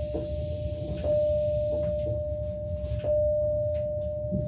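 A single-pitched electronic warning tone, held steadily and renewed about a second in and again about three seconds in, fading slightly after each. Underneath is the low hum of the stationary electric train.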